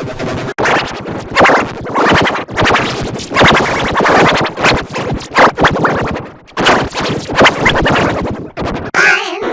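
Sparta-remix style electronic music built from rapidly chopped, stuttering samples with record-scratch effects. Near the end it turns to wavering, pitch-bent tones.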